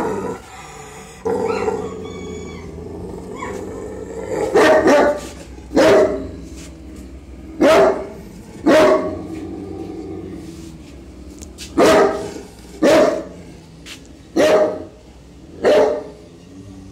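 A kennelled dog of the Bully Kutta (Pakistani mastiff) kind barking in single loud barks, about nine in all, roughly a second apart, starting a few seconds in. Fainter high whines come before the barking starts.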